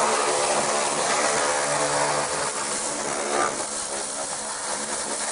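Pressure washer spraying, its jet hissing against a car's rusted floor pan over the steady hum of the washer's pump motor; it cuts off abruptly at the end.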